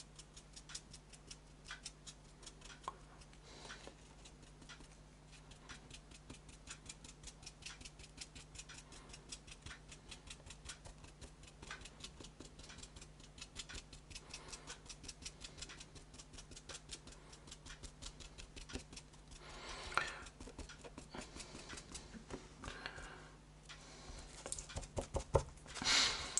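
Paintbrush dabbing paint onto embossed foam-board cobblestones: a quick, even run of faint ticking strokes, a few per second, with some louder scrubbing strokes near the end.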